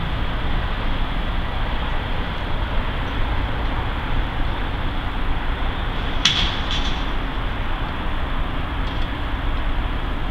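Norfolk Southern diesel freight locomotives running steadily as the train approaches slowly, with two brief sharp sounds about six seconds in, half a second apart.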